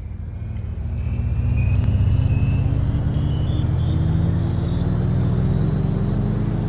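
Background intro music swelling up over the first two seconds: a heavy low drone under a slowly rising pitched sweep.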